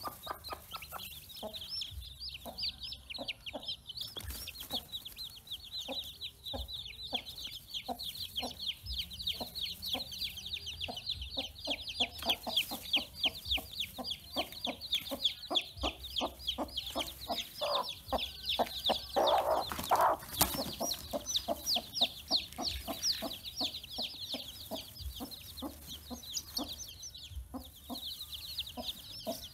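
A brood of newly hatched chicks peeping nonstop in rapid, high chirps. A hen clucks low underneath, with one louder burst about two-thirds of the way through.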